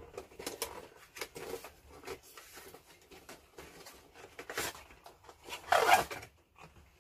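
Cardboard box and plastic blister packaging of an action figure being handled and opened: scattered rustles, scrapes and light clicks, with one louder rustling scrape near the end.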